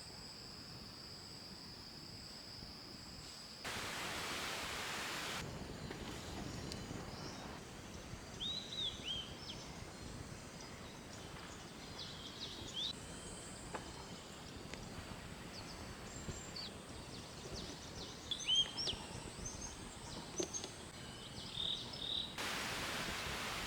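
Forest ambience: a steady high-pitched insect drone for the first few seconds, then scattered short bird chirps. Twice a brief, even hiss rises over it, once a few seconds in and once at the very end.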